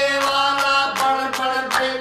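Background music: a held, sung vocal line over a steady beat.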